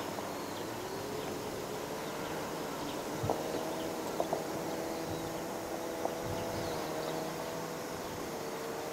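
Distant fighter jet engines idling on the apron: a steady hum that wavers slightly in pitch, with a few faint knocks about three and four seconds in.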